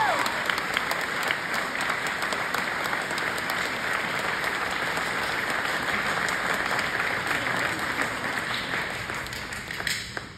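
Audience applauding steadily, a dense patter of many hands, which dies away and stops near the end.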